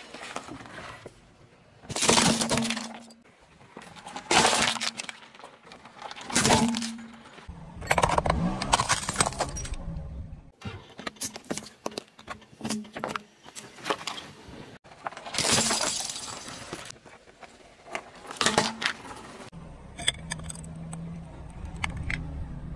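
Car tyre rolling slowly over small plastic toys and Play-Doh tubs on asphalt, crushing them in a run of separate cracks, crunches and pops of breaking plastic, with gritty crackling as the tread presses the pieces into the ground.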